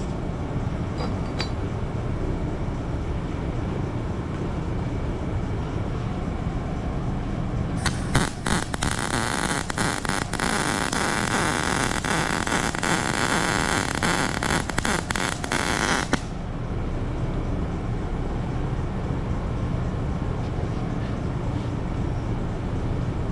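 Wire-feed welder arc laying a bead on the edge of a small steel cube: a steady crackling sizzle that starts with a few short stutters about eight seconds in, runs for about eight seconds, and cuts off abruptly. A low steady shop hum lies underneath.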